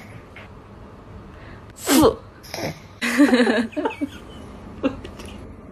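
A cat sneezing into a tissue held to its nose: a sharp sneeze about two seconds in, then a longer, noisier one about a second later, and a small one near the end.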